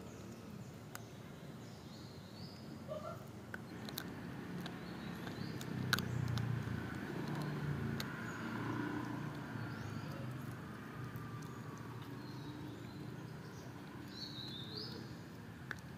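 Puppy gnawing and chewing on a bone, with scattered sharp crunches and clicks from its teeth. A low rumble swells and fades in the middle, like a vehicle passing, and birds chirp now and then.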